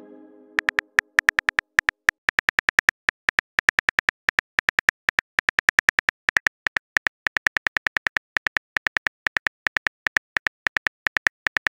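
Phone keyboard typing clicks from a texting-story app: short, sharp ticks several times a second at an uneven rhythm as a message is typed letter by letter. A low ringing tone fades out over the first second or so.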